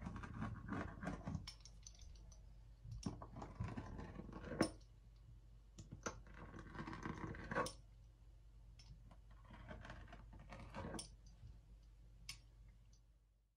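Pizza cutter wheel rolling through sesame dough and over a stone countertop in about four passes, each a short gritty scraping, with a few sharp clicks.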